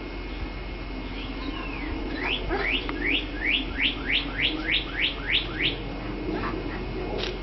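A bird singing a quick series of about a dozen identical rising whistled notes, about three a second, that stops partway through.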